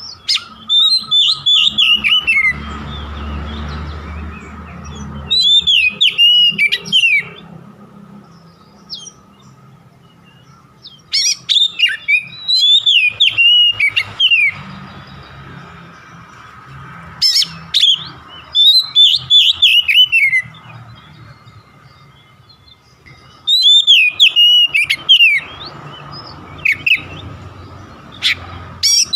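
Oriental magpie-robin (kacer) singing loud bouts of rapid, harsh, sharply falling whistled phrases, one bout every five to six seconds. This is a lure song of the kind played to set off a captive magpie-robin's singing.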